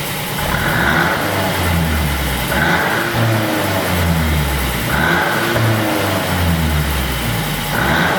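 Mercedes-Benz GLC300's 2.0-litre turbocharged four-cylinder engine revved again and again, about four blips, each rising and falling, through an exhaust set up with a tune for pops and crackles.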